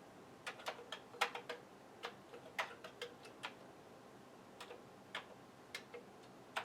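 Irregular keystrokes on a computer keyboard, a run of clicks at uneven spacing with a short pause in the middle.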